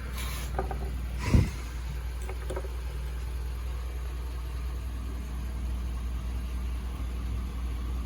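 Steady low mechanical hum, with a few light clicks and one brief, louder thump about a second and a half in.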